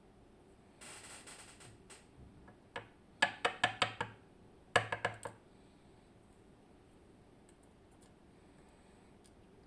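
Small metal parts of a BiLock camlock clicking and tapping as the lock is taken apart: a short scraping rustle about a second in, then a quick run of about five sharp clicks, and a few more clicks soon after.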